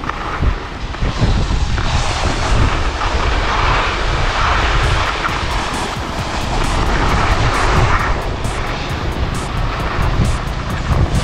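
Skis sliding and scraping over snow on a downhill run, with wind rushing over the action camera's microphone: a loud, steady rush. Over the second half a fast, light ticking of about four a second runs through it.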